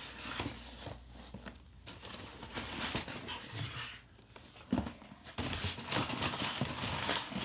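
Rustling of packaging and cardboard as items are handled and lifted out of an opened shipping box, with a couple of short knocks about halfway through.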